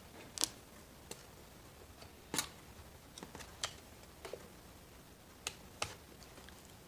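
Scattered light clicks and ticks of an Allen key working a screw on a Shindaiwa 490 chainsaw, with one sharper click a little over two seconds in and two more near the end.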